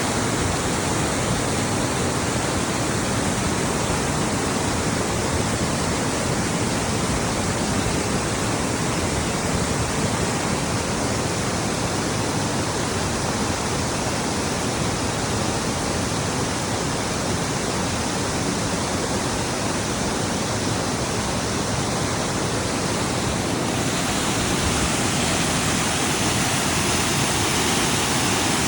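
Giessbach waterfall's water rushing and crashing in a steady, loud roar of white noise; about three-quarters of the way through it turns brighter and hissier.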